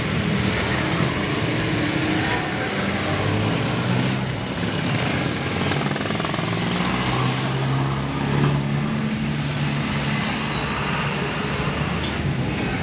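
Road traffic noise heard from inside a moving vehicle, with an engine running low and steady and its pitch shifting a little as it goes.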